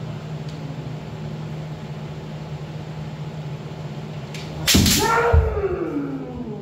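Kendo sparring: about five seconds in, the sharp crack of a bamboo shinai strike and the thud of a stamping foot, then a long shout falling in pitch, the striker's kiai. A steady low hum lies underneath.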